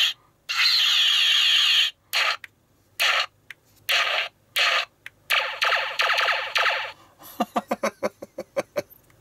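Playmates Deep Space Nine toy's electronic sound effects playing through its small built-in speaker as its buttons are pressed: a long buzzy effect, several short zaps, another long effect, then a fast string of short beeps near the end.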